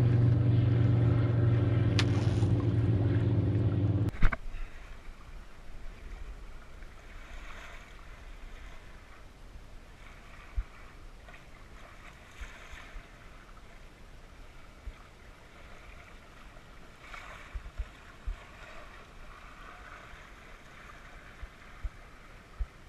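A boat engine's steady hum, cut off suddenly about four seconds in; then water washing quietly along a small sailboat's hull, with a few light knocks.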